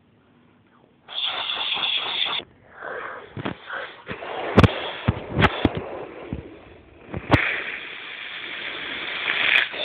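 Handling noise from a phone being moved: rustling with several sharp clicks and knocks, then a steady hiss from about seven seconds in.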